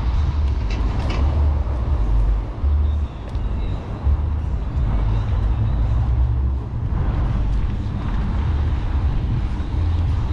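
City street ambience with a heavy, uneven low rumble and the noise of passing traffic.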